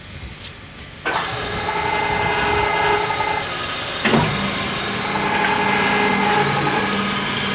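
Ship's deck crane hoist motor switched on from a pendant control about a second in and running steadily with a whine. A sharp click comes about three seconds later, and a lower steady hum joins in.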